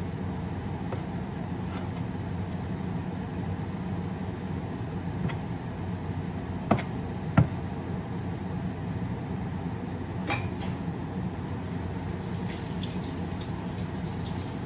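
Chopped bitter melon cooking in a covered pan on a gas burner: a steady simmering hiss, with a few sharp ticks around the middle.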